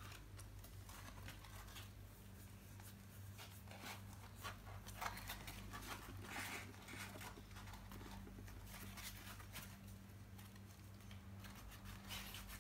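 Quiet room with faint, scattered rustling and handling noises from the foam-and-paper craft dolls being moved and set down on paper, over a steady low electrical hum.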